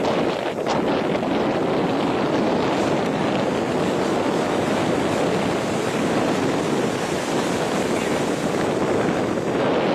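Steady rushing noise of wind on the microphone mixed with sea surf washing on the shore.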